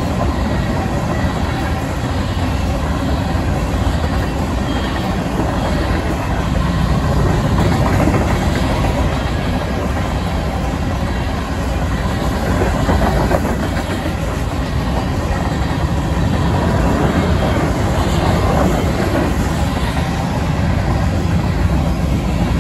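Covered hopper cars of a Union Pacific grain train rolling past: a steady rumble and clatter of steel wheels on the rails.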